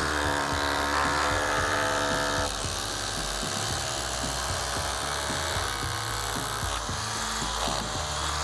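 DeWalt cordless rotary hammer running continuously as it drills a hole into precast concrete for a concrete nail. Its steady tone changes about two and a half seconds in.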